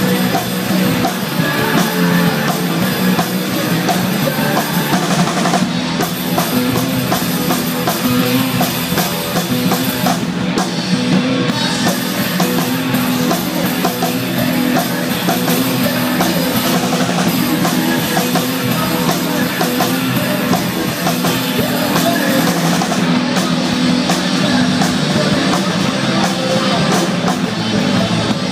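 Rock band playing live: electric guitars over a drum kit, loud and continuous.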